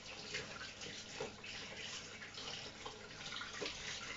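Kitchen tap running as hands are washed under it, with small splashes now and then.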